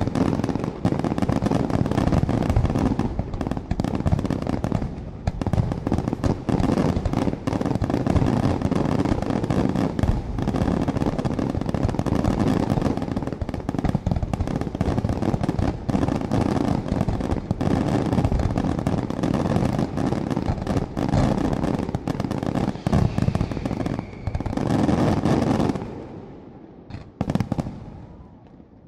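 Professional aerial firework shells and barge-fired comets going off in a rapid, continuous barrage of bangs and crackle: the closing salvo of the display. About 26 seconds in, the barrage thins to a last few bursts and dies away.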